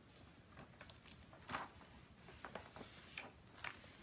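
Faint clicks and paper rustles of a picture book being opened and its pages handled, with a few short, scattered strokes, the loudest about a second and a half in.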